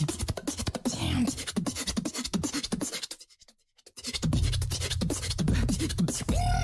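Solo beatboxing: fast, dense percussive clicks and snares over deep bass. It cuts out for under a second about halfway through, then comes back with heavy bass and short pitched vocal sweeps.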